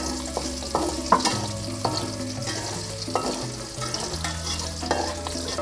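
Chopped garlic and shallots sizzling in hot oil as they are stir-fried, with several sharp clicks of the stirring utensil against the pan.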